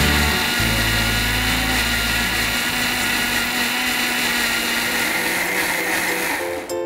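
Electric mixer grinder running steadily, grinding grated coconut, coriander, shallots and turmeric with water into a smooth wet paste. The motor noise cuts off near the end as a music cue with repeated notes starts.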